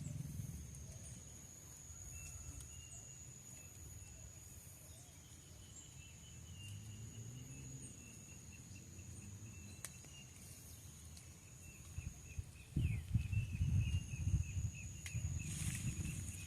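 Insects in natural ambience: a steady high-pitched insect tone and, from about a third of the way in, a fast pulsing trill. Near the end, low rumbling thuds hit the microphone.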